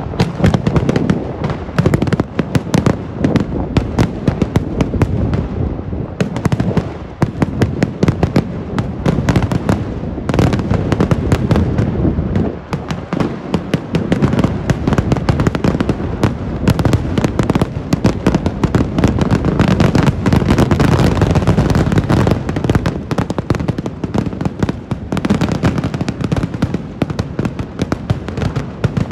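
Dense, continuous fireworks barrage: a large mass of firecrackers and aerial shells going off in rapid, overlapping bangs and crackles with no pause, over a deep rumble.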